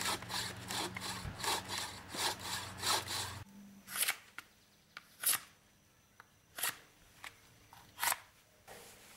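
Bow saw cutting through a log in rasping back-and-forth strokes, about two a second, which stop suddenly about three and a half seconds in. After that a large knife chops into a wooden stick: four sharp strikes about a second and a half apart, with a few lighter taps between.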